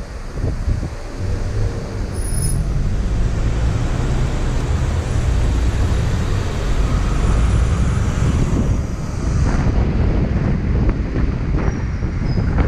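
Car driving slowly through city streets: a steady low rumble of road and engine noise, with wind on the microphone.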